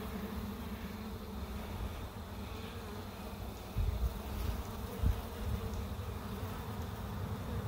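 A colony of honey bees buzzing steadily on a frame of freshly built comb lifted from a swarm trap, with a couple of brief low thumps about four and five seconds in.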